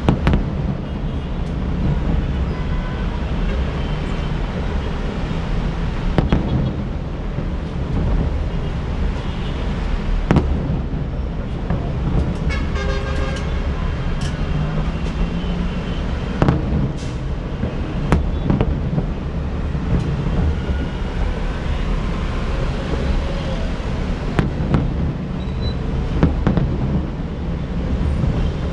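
Distant fireworks going off as scattered bangs every few seconds over steady city traffic noise, with a vehicle horn sounding about thirteen seconds in.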